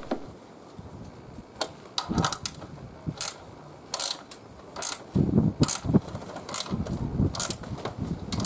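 Ratcheting combination wrench (gear wrench) clicking in short, sharp spells about once a second as it tightens nuts on a side awning's mounting bolts, with a low rumble through the second half.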